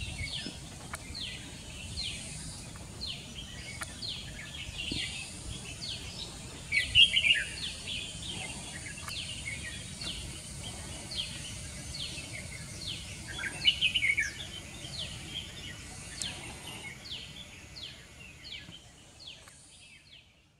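Birdsong: a steady series of short, high, falling notes about twice a second, with louder warbled phrases about 7 and 14 seconds in. It fades out near the end.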